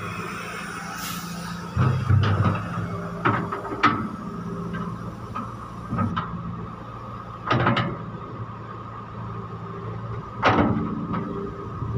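John Deere 595D excavator's engine running steadily under work, with about half a dozen sharp clanks and knocks from the digging, the heaviest about two seconds in.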